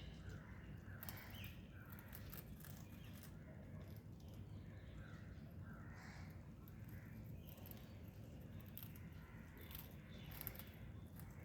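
Parakeets calling faintly in short squawks, with small clicks mixed in.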